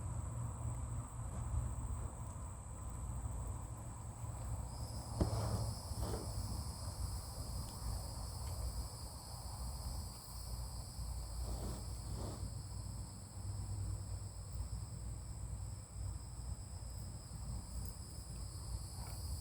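Insects, crickets by the sound of it, singing a steady high-pitched chorus, with a second, lower insect tone joining about five seconds in, over a steady low rumble.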